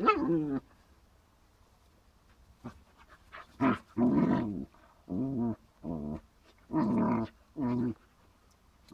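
Dogs growling as an adult German Shepherd-type dog and a puppy play-fight: one growl at the start, a quiet gap of about three seconds, then a run of five short growls.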